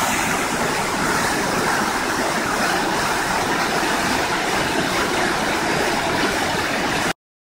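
Whitewater creek rushing steadily over and between boulders, cutting off abruptly near the end.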